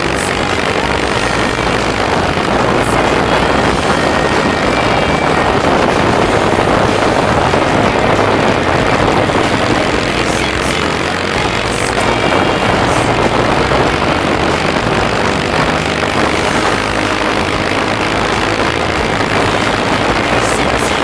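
Norton Commando Mk III Interstate's 828 cc parallel-twin engine running steadily at road speed, recorded onboard the moving motorcycle and mixed with a constant rush of wind and road noise.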